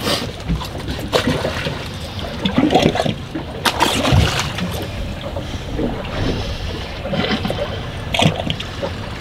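Water slapping and splashing against the hull of a drifting fishing boat, with a few sharp knocks now and then.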